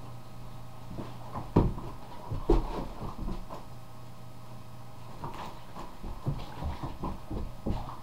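A boxer puppy playing and moving about on a carpeted floor: irregular soft thuds and bumps, the two loudest about a second and a half and two and a half seconds in, over a steady low hum.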